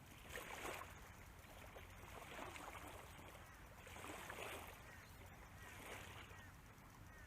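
Near silence: faint lapping of small ripples at the water's edge on a calm flat, a soft wash every second or two.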